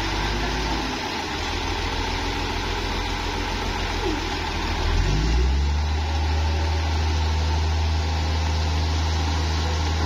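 Bulldozer's diesel engine running steadily, then picking up speed about five seconds in and running louder after that.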